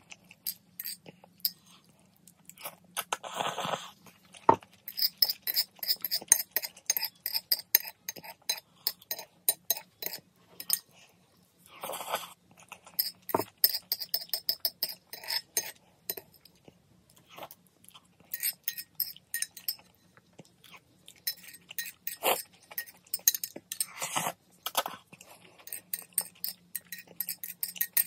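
Close-up eating of spicy instant noodles: wet chewing with metal chopsticks clinking and scraping against a ceramic bowl, in a run of quick clicks and a few longer noisy bursts.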